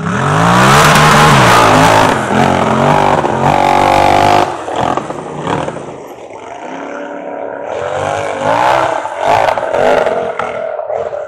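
Polaris RZR side-by-side engine revving hard as it launches off the start line, the pitch climbing and dropping with each blip of the throttle. The engine is loudest in the first four seconds or so, fades a little, then revs up and down again from about eight seconds in.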